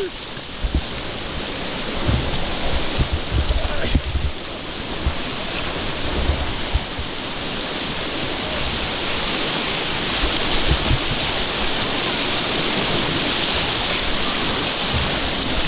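Rushing water of a rocky mountain stream: a steady whitewater rush, with low rumbles in the first few seconds.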